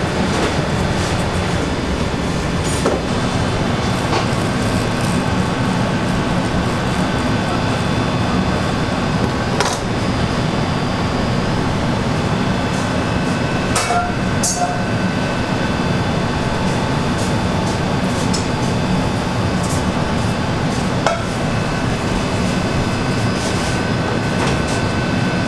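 Steady machine hum with a few faint high tones, broken by occasional short clicks and knocks, about five in all.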